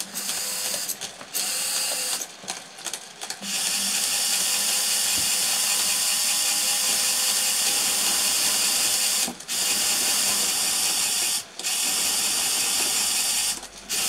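Small fischertechnik electric gear motors whirring under infrared remote control. They stop and start choppily for the first few seconds, then run steadily, cutting out briefly three times in the second half. The dropouts come from interference between the two infrared remote controls.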